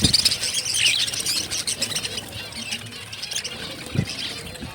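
Many small cage birds chirping rapidly together, loudest in the first second, with a couple of short low thuds.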